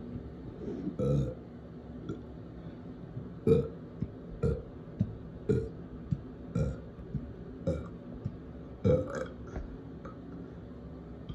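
A person burping repeatedly: one burp about a second in, then a run of six short burps about a second apart.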